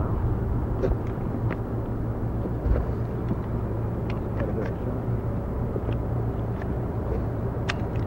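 Steady low rumble of the Snowbirds' CT-114 Tutor jet engines running in the distance, with a few faint clicks.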